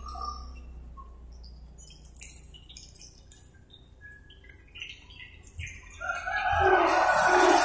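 Small birds chirping over and over in short high notes. A louder rushing noise builds up about six seconds in and lasts to the end.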